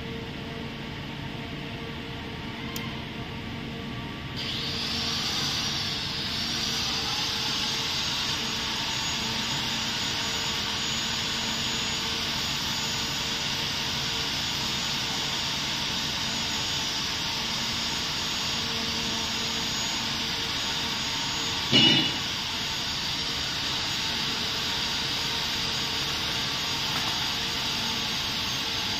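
Steady machine noise: a low hum with a high, even hiss that comes up about four seconds in and holds, and one sharp knock about three-quarters of the way through.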